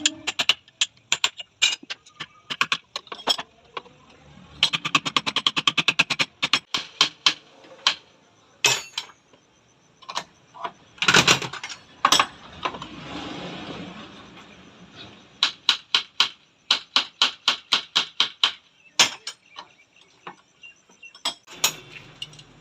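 Metal clicks and knocks from hand work on a motorcycle rear shock absorber: runs of rapid, evenly spaced clicks, one fast and dense, a later one at about four a second, broken by a few louder knocks.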